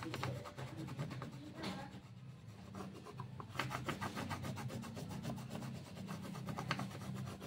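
Blue colored pencil rubbing on paper in fast back-and-forth shading strokes, coming in spells of quick scratchy strokes.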